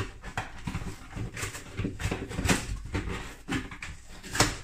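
Cardboard delivery box being opened and rummaged by hand: flaps and packing rustling and scraping in a run of short, uneven scrapes, the loudest one near the end.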